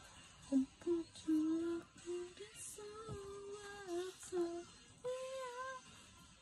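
A voice singing a melody in a series of short held notes over faint background music.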